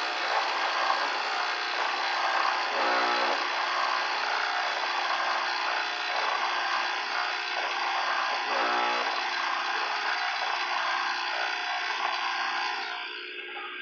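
Master Chef manual espresso machine running with a steady buzz, most likely its pump, with a brief low hum coming through it twice. It eases off near the end.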